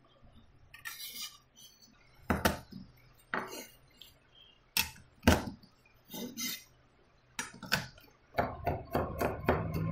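Chef's knife cutting garlic cloves on a wooden cutting board: a handful of separate knocks of the blade on the board, then a quick run of chopping strokes near the end as the garlic is minced.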